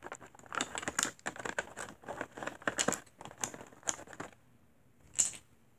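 Thin clear plastic packaging tray crinkling and crackling as it is handled, a rapid irregular run of crackles that stops about four seconds in, then one sharper click near the end.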